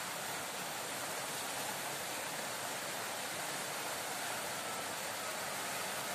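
Steady rushing of a small forest stream, an even hiss-like wash of water that does not change.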